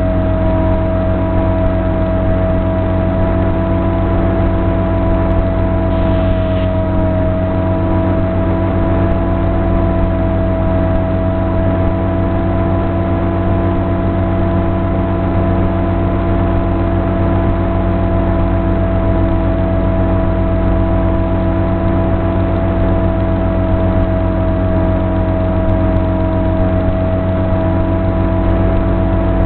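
Brushless electric motor and propeller of a Sonic Modell AR Wing FPV flying wing running at a steady cruise throttle: a constant droning whine that holds its pitch, dipping slightly once.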